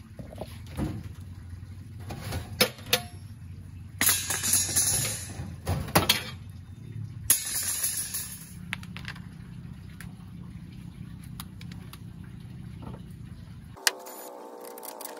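Background music with a steady low beat and a few loud crashes. It cuts off abruptly about a second and a half before the end.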